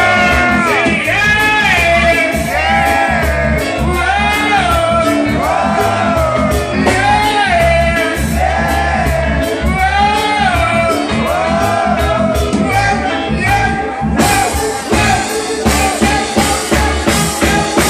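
Live band playing loudly, with a male lead singer singing into a microphone over electric guitar, bass, horn and drums. About fourteen seconds in the singing stops and the band plays on with sharper drum and cymbal hits.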